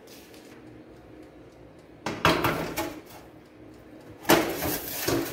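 Glass baking dish being slid into a countertop electric oven and the oven door shut: two loud scraping clatters about two seconds apart, each lasting under a second.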